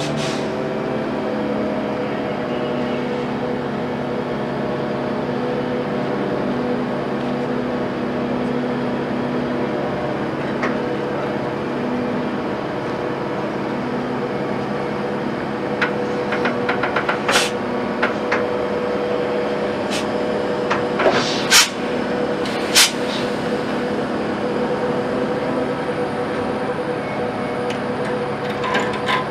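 Heavy diesel engine running steadily at a constant pitch while a crane holds a large steel crane section on chains. From about halfway in, a few sharp knocks and clanks stand out above the engine.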